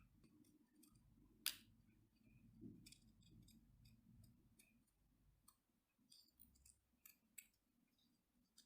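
Faint, scattered snips and clicks of scissors cutting a photo print, with one sharper click about one and a half seconds in.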